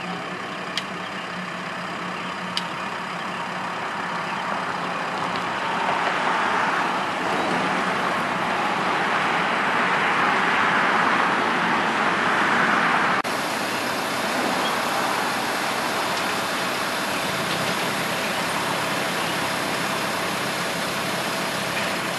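Telehandler's diesel engine running steadily, growing louder for several seconds while it lifts a steel column on its boom, then dropping back abruptly a little past halfway. A couple of faint metallic clicks come in the first few seconds.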